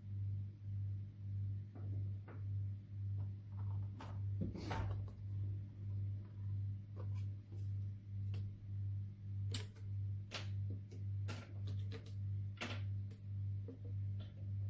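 Slime being squished and worked by hand, giving scattered clicks and crackling pops, over a low hum that swells and fades about twice a second.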